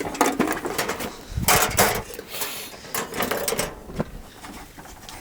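Camping cookware and gear being handled and shifted about: irregular knocks, clicks and rustling, loudest about one and a half to two seconds in, then quieter.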